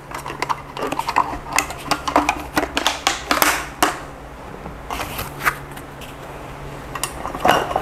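Aluminium slats of a roll-up camping table top clicking and clattering against each other as it is handled and unrolled, with rustling.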